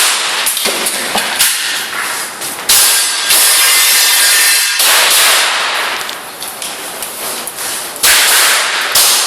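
Airsoft pistol shots: a string of sharp cracks at uneven intervals of one to several seconds, each trailing off in a long hiss.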